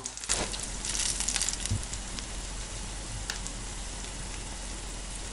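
Pelmeni frying in oil in a frying pan over a low gas flame: a steady soft sizzle with a few small pops. The sharp crackling of the thawing stage is gone and the dumplings are simply browning.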